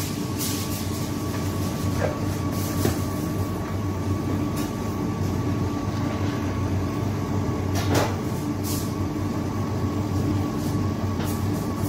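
Electric stand mixer running steadily, its motor humming as the beater turns through cake batter while flour is added, with a few light knocks.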